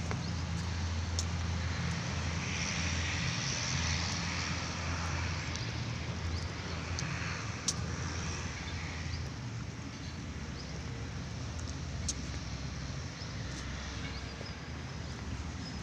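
A steady low engine hum over a background noise hiss, with a few light clicks.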